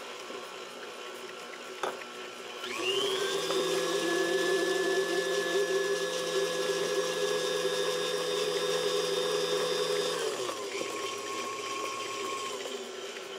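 Electric stand mixer creaming an egg into butter-and-sugar batter. After a short knock about two seconds in, the motor speeds up with a quick rising whine and runs steadily, then drops to a lower speed near the end.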